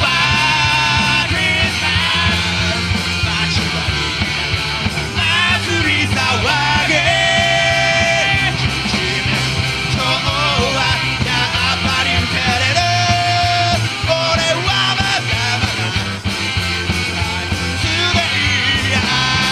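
A live rock band playing: electric guitar, electric bass and drum kit, with a lead vocal over them that holds some long notes.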